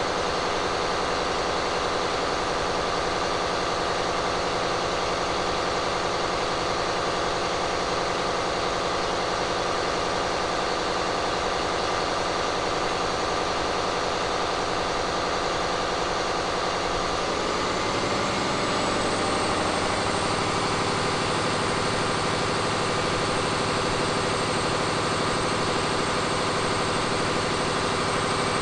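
Caterpillar 3508B V8 twin-turbo diesel engine running on a dynamometer, steady at first; about eighteen seconds in its pitch rises over a couple of seconds and then holds at the higher speed.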